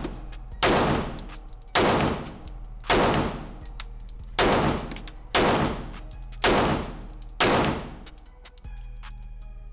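Handgun fired at a deliberate pace: about seven single shots, roughly one a second, each sharp crack trailing off in a short echo.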